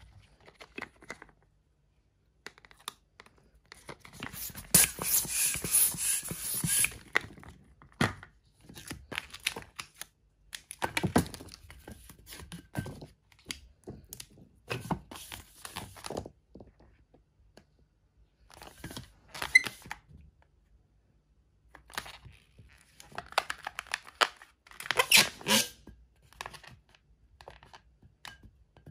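Latex modelling balloons being handled: rustling, rubbing and squeaks of the rubber, with scattered small knocks. About five seconds in, a couple of seconds of rushing air as a hand pump inflates a long balloon, and another airy, squeaky stretch near the end.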